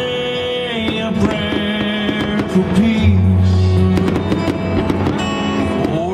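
Music playing, with many short crackles and pops from fireworks over it.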